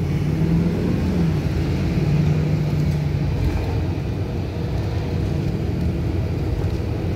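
Bus engine and road noise heard from inside the cabin as the bus drives along, with a low engine hum over the first three seconds or so.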